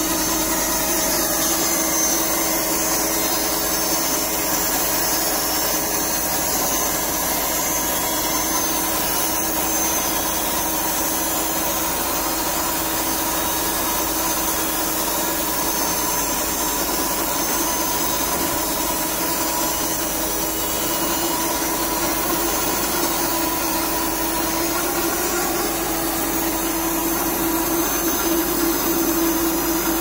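KP Forsttechnik PT-130 band sawmill running steadily, a constant machine hum over the hiss of the saw, with the hum growing slightly louder near the end.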